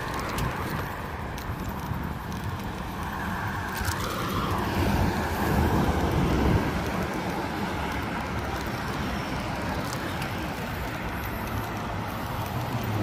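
Road traffic, cars passing on a busy street as heard from a bicycle, growing louder about five to six seconds in as a vehicle goes by.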